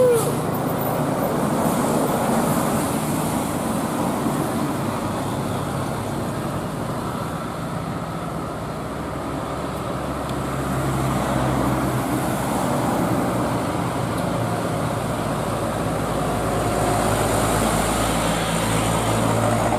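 Bus traffic: a bus engine's steady low hum and road noise, with the engine hum growing stronger about halfway through.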